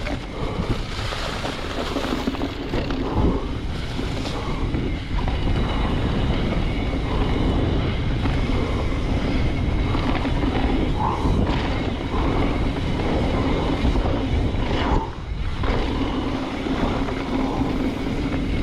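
Trek Fuel EX 9.8 Gen 6 mountain bike ridden along a dirt trail: steady wind rushing over the microphone, mixed with tyre noise on the dirt and the rattle of the bike over rough ground.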